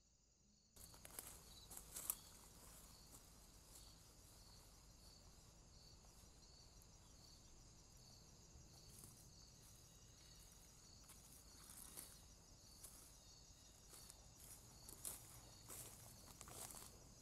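Night insects calling: a faint, steady high-pitched cricket trill with a softer chirp repeating about once a second, over a low hiss and scattered light ticks. The sound starts about a second in.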